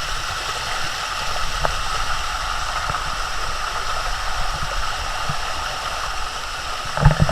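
Shallow water running steadily down the limestone steps of a cascading waterfall, a continuous rush.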